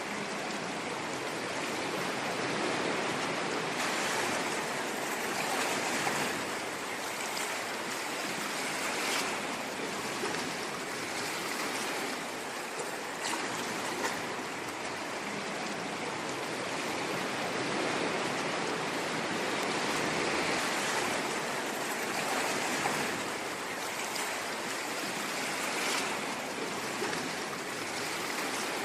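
Sea waves washing on a shore: a continuous rush of water that swells and eases every few seconds, with small splashes.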